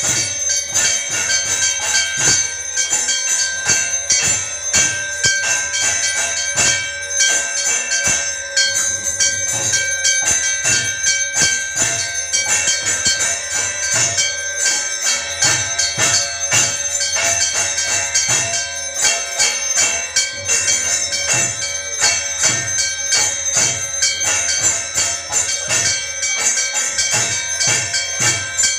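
Temple bells ringing without a break during a Hindu arati, struck in a fast, even stream so that their metallic ringing tones overlap and hang on.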